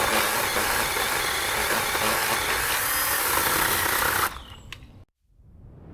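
Small battery-powered electric chainsaw cutting through hard wood, a steady harsh noise that stops abruptly a little over four seconds in.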